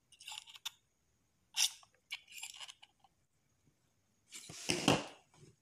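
Small scrapes and ticks as fingers and tools work metal vape coil wire and atomizer parts, with a louder rustle about a second long near the end.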